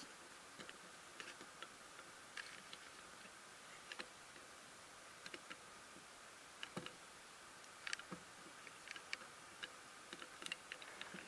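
Faint, irregular light clicks and taps, as of a small diecast model being handled and its parts moved, over quiet room hiss.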